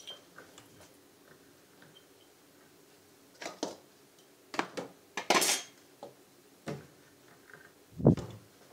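Kitchen utensils and cookware being handled: scattered sharp clinks and knocks that start a few seconds in and cluster in the middle, one ringing briefly, then a single heavier thump near the end, the loudest of them.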